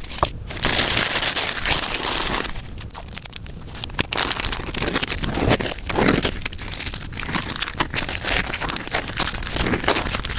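Crinkling and rustling of packaging being handled, an irregular run of crackles with no pauses.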